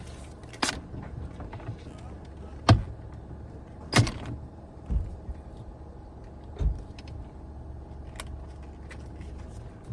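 Scattered sharp clicks and knocks of hand tools and loosened parts as a car's steering wheel is being unbolted, about one every second or so, over a low steady hum.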